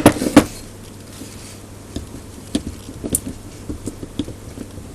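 Hand tools clicking and knocking against the metal parts of an Emotator 1200 antenna rotator, working at a stuck part. A quick loud rattle comes right at the start, then scattered light clicks.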